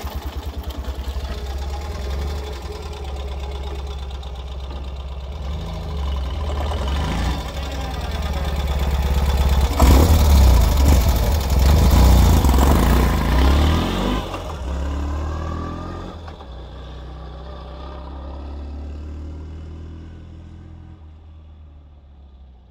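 2023 Ural Gear Up sidecar motorcycle's air-cooled flat-twin engine, just warmed up from a cold start, being ridden: it runs steadily, grows loudest about ten seconds in with its pitch rising and falling as it accelerates, then fades away over the last several seconds.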